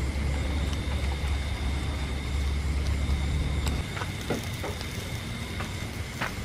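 A low steady rumble with a faint high steady whine for the first few seconds. After the rumble stops, a few soft crackles come from river prawns grilling on a wire rack over charcoal.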